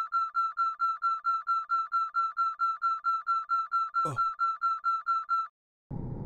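A starfighter cockpit's overspeed warning beeping rapidly, one high tone about five times a second, which stops a little before the end. It signals that the ship is flying way too fast. A brief falling swoosh cuts through about four seconds in, and a low steady rumble comes back near the end.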